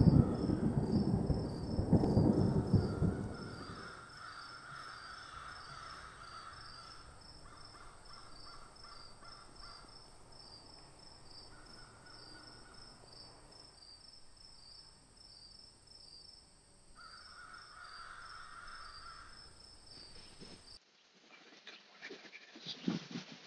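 A deep rumble fades out over the first few seconds. It gives way to quiet outdoor ambience with crows cawing faintly in stretches of a few seconds.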